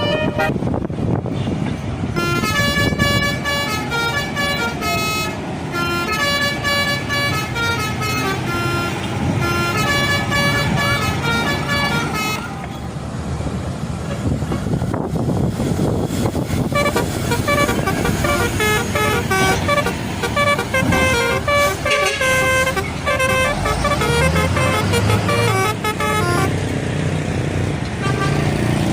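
Bus telolet horn, a multi-tone air horn, playing quick melodic runs of short stepped notes in two long spells with a short lull between them, over a running bus engine.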